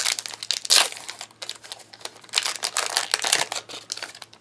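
Foil wrapper of a 2016 Topps baseball card retail pack crinkling and tearing as it is ripped open, in two bursts of rapid crackling.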